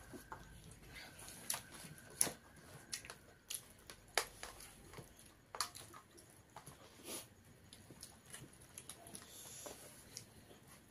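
Eating sounds close to the microphone: irregular wet smacks and clicks of chewing, with fingers mixing rice by hand.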